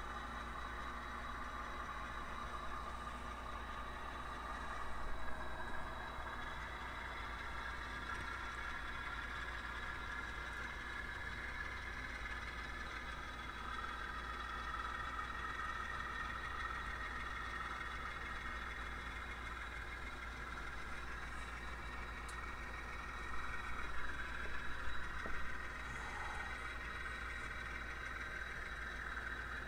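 Model railroad diesel locomotives pulling a coal train slowly along the track, making a steady mechanical hum with higher drifting whines. It gets louder briefly about five seconds in and again about twenty-four seconds in.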